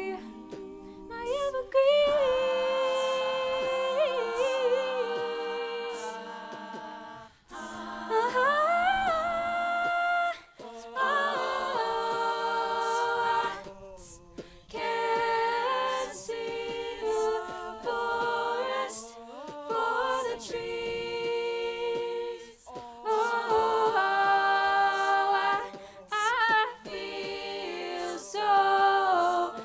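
A cappella group singing in close harmony, a female soloist's voice sliding through long wordless runs over the backing voices.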